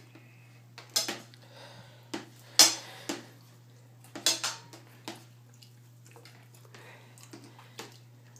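Small metal spoon clinking and knocking against a plastic high-chair tray in an irregular run of sharp taps. The loudest comes about two and a half seconds in, with softer taps later.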